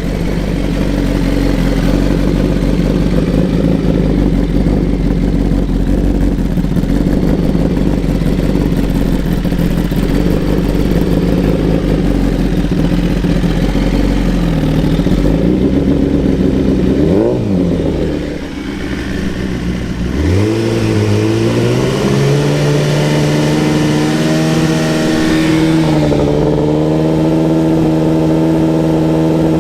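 Suzuki GSX-R 1000 inline-four running through a Brock's Penta Carbon full exhaust system. It idles steadily, gives a quick blip of revs in the middle, then runs steadily at a higher pitch.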